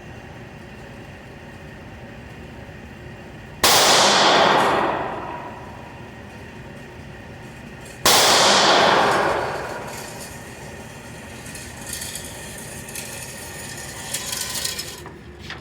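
Two shots from a Diamondback AR-style 9mm pistol, about four and a half seconds apart, each trailing off over a second or two. Fainter clatter follows near the end.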